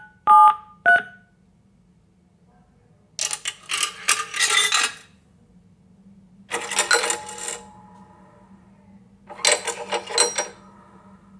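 Two last touch-tone keypad beeps, then three separate bursts of coins clattering, each leaving a short metallic ring: coins dropping through a payphone's coin slot.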